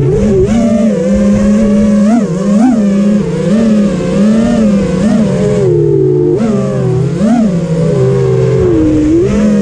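FPV drone's brushless motors and propellers, a loud buzzing whine whose pitch jumps up and falls back again and again as the throttle is punched and released.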